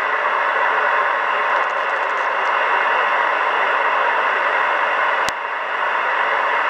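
Kenwood R-5000 communications receiver giving a steady hiss of band noise through its speaker, with no station coming through. A single sharp click comes about five seconds in.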